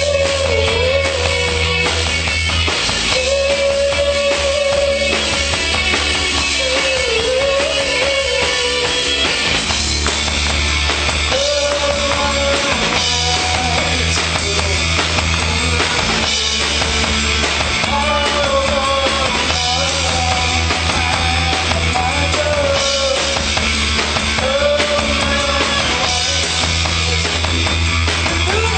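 A rock band playing a song live: drum kit, bass and guitar with a held, gliding melody line over them, repeating a phrase every few seconds.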